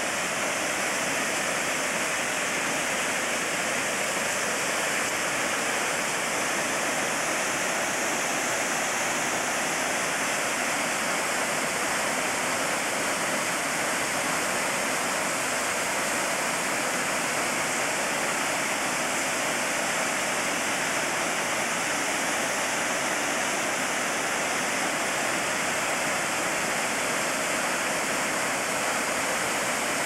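Steady rush of the Meoto-daki waterfall: water pouring down rock and splashing into its plunge pool.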